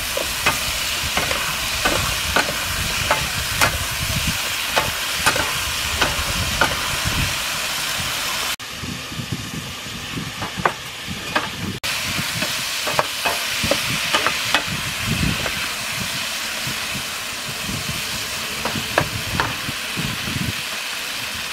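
Vegetables and fried fish sizzling in a hot frying pan while a wooden spatula stirs them, knocking against the pan about once or twice a second. The sizzle drops away for a few seconds midway, then returns.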